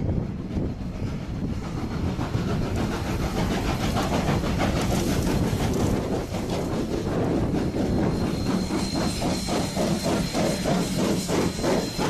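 A train ploughs through deep snowdrifts close by: a dense rush and hiss of thrown snow over the rumble of the train. From about two-thirds of the way in, a quick, regular clacking of wheels over the rails comes through, with a thin, steady high whine above it.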